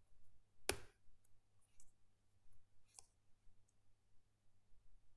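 A few separate computer keyboard keystrokes over quiet room tone: one sharp click a little under a second in, the loudest, another about three seconds in, and fainter clicks between them.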